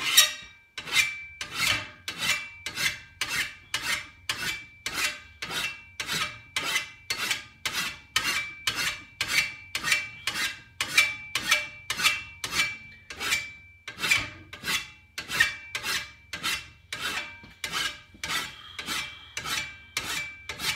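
A large flat file rasping across the steel grass blade of a Husqvarna 525RX brushcutter, sharpening its cutting teeth in steady strokes, about one and a half a second. The blade gives a thin metallic ring with each stroke.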